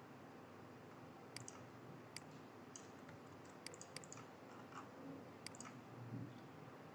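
Faint, scattered clicks of a computer mouse, about half a dozen, over low room hiss.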